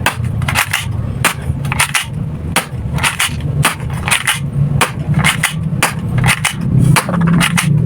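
Toy pellet gun fired rapidly and repeatedly, a quick string of sharp snapping cracks about two or three a second, with pellets striking and punching through a cardboard box. A steady low hum runs underneath.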